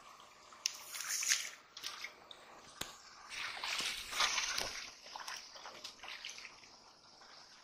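Shallow muddy water splashing and sloshing as a child wades and gropes through it by hand, moving a metal pot through the water. It comes in uneven bursts, the longest and loudest about halfway through.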